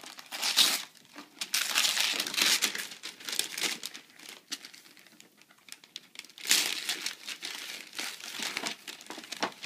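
Christmas wrapping paper being torn and crumpled by hand as a present is unwrapped, in several spells of ripping and rustling with short pauses between.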